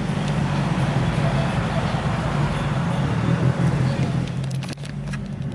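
Car engine idling, heard from inside the cabin as a steady low drone.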